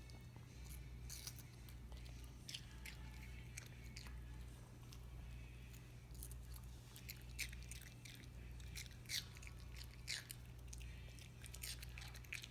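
Pomeranian chewing and biting into watermelon: irregular wet, crunchy chomps and smacks, a little louder in the second half, over a steady low hum.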